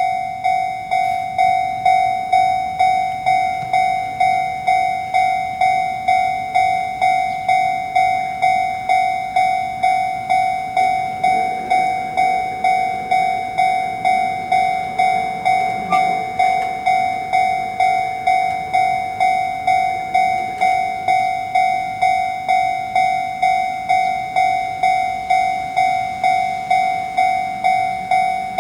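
Japanese railroad crossing warning bell ringing the steady "kan-kan" alarm, one tone repeating evenly a little under twice a second.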